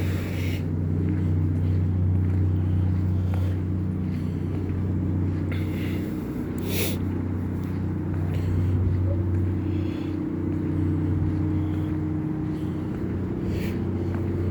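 An engine running steadily, a low, even hum, with a couple of brief faint hissing scrapes over it.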